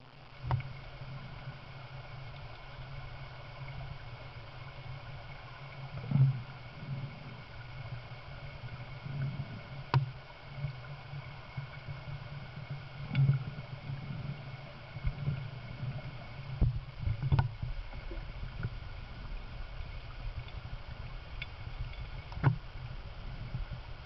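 Underwater river sound picked up by a submerged camera: a steady low hum, with sharp knocks and clicks every few seconds.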